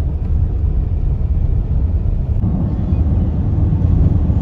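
A car driving: a steady low road rumble, a little fuller about halfway through.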